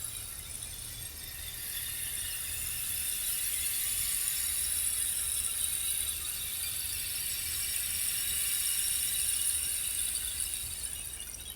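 A handmade eucalyptus-wood rainstick tipped over, its fill pouring down inside as a continuous high, hissing patter that swells slightly and fades away near the end.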